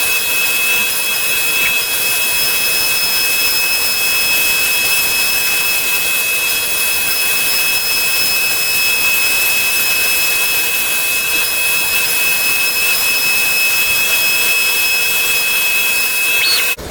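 A woodworking power tool running steadily: a loud hiss with a constant high-pitched whine and no change in speed. It cuts off abruptly at the very end.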